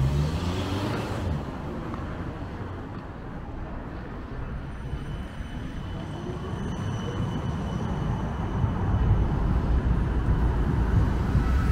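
An electric city tram runs past close by on its street rails and pulls away, with a faint rising whine. Street-traffic rumble grows louder in the last few seconds.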